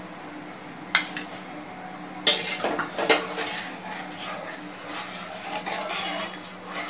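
A steel spoon clinks against a pan of milk about a second in. Then a spatula stirs the milk, scraping and knocking against the pan in irregular strokes.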